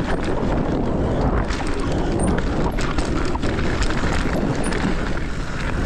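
Mountain bike riding down a dirt singletrack: steady wind rumble on the microphone with tyre noise and frequent small rattles and knocks of the bike over bumps.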